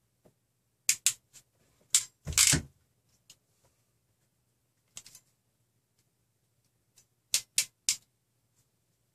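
Sharp clicks and a short clatter of metal hand tools and small plastic connector parts being handled and set down on a table, with the loudest clatter about two and a half seconds in and three quick clicks between seven and eight seconds.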